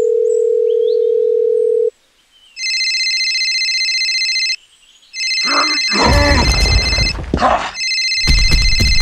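A steady telephone dial tone for about two seconds, then a mobile phone ringtone ringing in three bursts of about two seconds each. A loud, rough voice-like sound comes in over the second and third rings.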